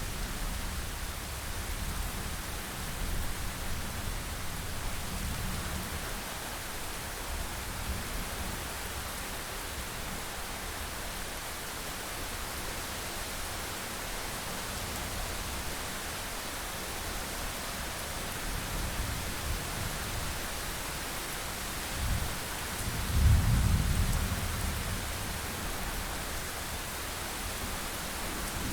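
Thunderstorm: steady rain falling with rolling thunder rumbling low underneath, one louder clap and rumble about three-quarters of the way through.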